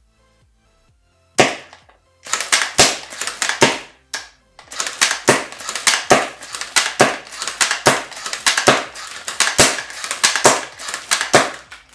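Spring-powered bolt-action airsoft sniper rifle fired as fast as it can be reloaded: sharp shots and bolt clacks in quick succession, roughly two sharp clicks a second, beginning about a second and a half in.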